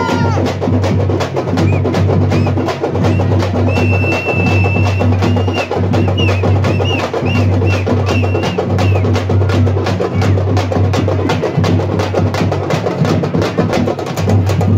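Festival drums played in a fast, driving rhythm of dense sharp strokes over a heavy low beat. A high, wavering piping tone sounds over the drumming for several seconds in the middle.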